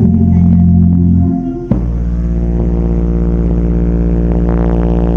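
A song played through DJ subwoofer bass cabinets with the amplifiers on low-pass filter, so mostly deep, held bass notes come through. A sharp hit about two seconds in starts a new, steady bass note.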